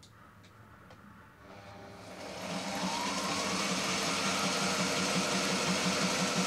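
Sailrite Ultrafeed walking-foot sewing machine: a few light clicks, then the motor starts, its whine rising as it speeds up, and it runs steadily sewing a close, buttonhole-like zigzag through cloth with a fast, even stitch beat. It runs smooth and quiet.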